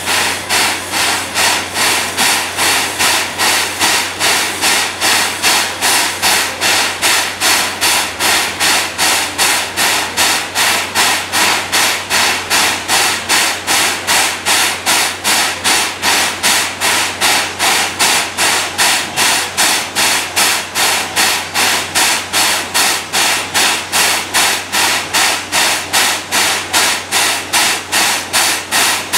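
Steam locomotive C11 325 standing with a steady rhythmic hissing beat, about two and a half short strokes a second.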